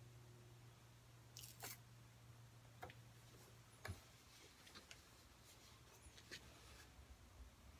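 Near silence: faint rustles and light clicks from hands working a strip of tape around the bell end of a wooden didgeridoo and turning the tube, with a brief scratchy peel about one and a half seconds in and the sharpest click about four seconds in, over a low steady hum that fades partway through.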